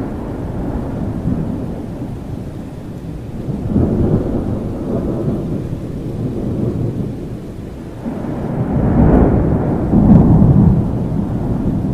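Thunderstorm: steady rain with rolling thunder rumbling low, swelling about four seconds in and again, loudest, near the end.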